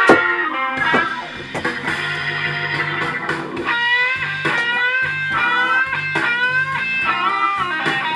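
Background music: a blues-rock electric guitar playing bent, sliding notes over a steady bass line.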